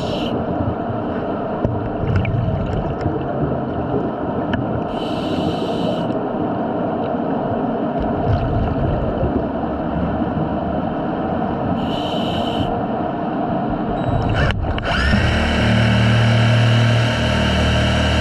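Underwater ambience with a diver's scuba regulator exhaling bursts of bubbles, three times about six to seven seconds apart. Near the end a sharp click, then a steady mechanical hum starts and holds.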